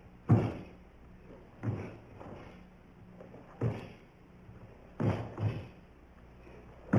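Bare feet of a karateka performing the Jitte kata landing on a wooden floor in five sharp thuds, each with a short echo; the last two come close together. A louder ringing sound starts right at the end.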